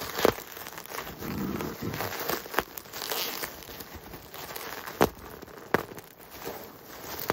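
Bubble wrap being crinkled and pulled open by hand, rustling, with a few sharp clicks and snaps spread through it.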